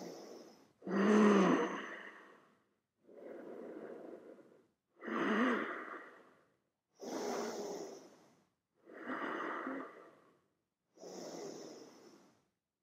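A person breathing deeply and audibly in a slow, even rhythm: about seven breaths, roughly one every two seconds, with short pauses between them.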